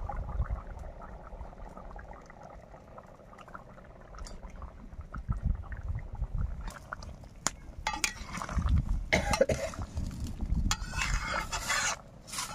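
Metal spatula clinking and scraping in a metal pan of simmering egg curry as boiled eggs are tipped in from a steel bowl and stirred. The clinks and scrapes come thick in the second half, after a quieter stretch of low rumble.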